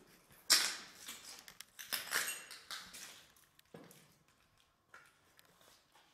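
Footsteps crunching and scraping on rubble and broken plaster over a concrete floor, a few uneven steps, the first about half a second in the loudest.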